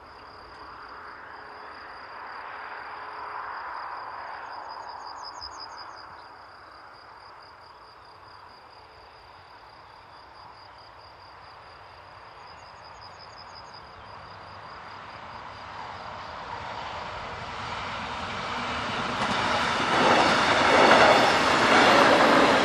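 A DB Class 143 electric locomotive and its coaches pass: a faint rumble from a distance, then rising to a loud rush of wheel and rail noise near the end. A steady high-pitched insect trill runs through the first half.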